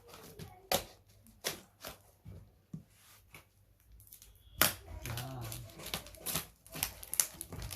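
Parcel packaging being torn open along one side by hand: a string of sharp, separate rips and crinkles, the loudest about two-thirds of the way through.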